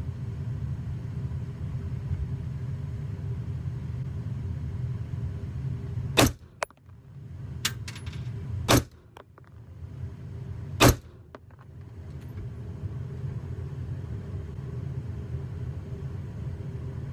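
AR-15 rifle firing three single shots, the first about six seconds in and the others about two and a half and two seconds after it, over a steady low rumble.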